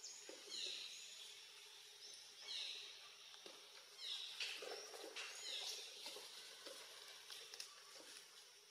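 Birds calling in the forest: short, high chirps that fall in pitch, repeated in little groups every second or two over a faint outdoor background.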